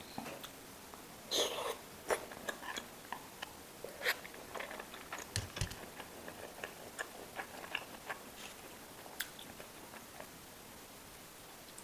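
A person eating close to the microphone: irregular wet chewing and biting, with sharp crisp clicks and a few louder crunchy bites.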